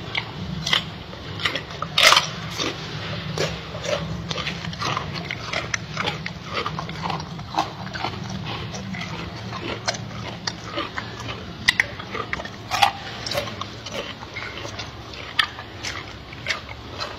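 Gorilla chewing a crisp raw vegetable stalk: irregular crunches and mouth clicks, a few sharper and louder than the rest.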